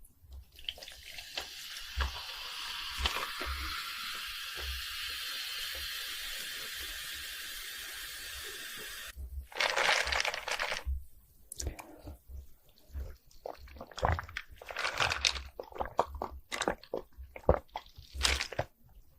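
A steady hiss for about the first nine seconds, which cuts off suddenly. Then come crunchy bites and chewing of fried cheese balls with a crushed Hot Cheetos coating, in irregular loud crunches.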